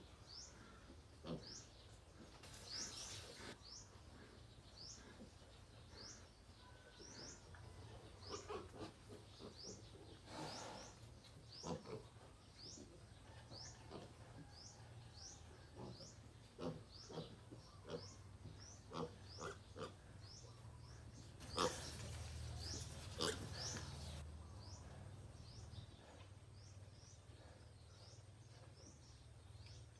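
Piglets eating banana: soft, quick chewing and smacking clicks with pig grunts, and now and then a brief rustle of movement. Throughout, a short high rising chirp repeats over and over.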